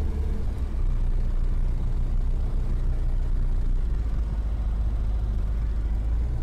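Eurofox microlight's piston engine idling steadily, a low hum in the cockpit picked up through the headset intercom.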